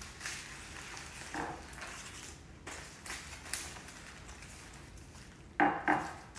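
Baking paper rustling and crinkling as it is peeled away from a rolled cake on a plate. Near the end come two short, louder knocks.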